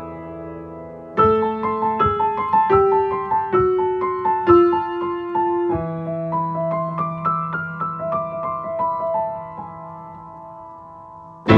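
Grand piano played solo: a held chord dies away, then a slow melody of single notes over sustained low chords, fading softly before a loud chord is struck at the very end.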